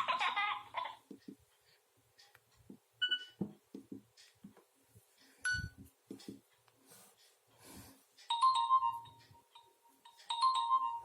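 Nokia mobile phone ringtones playing through the phone's small speaker. A tone ends about a second in, followed by small handling clicks and two short beeps. An electronic melody starts about eight seconds in and repeats its phrase near the end.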